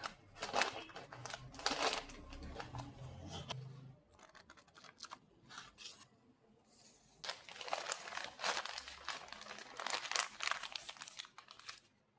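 Crinkly wrapping material being handled at close range: irregular crackling rustles in two spells, with a quieter lull in the middle.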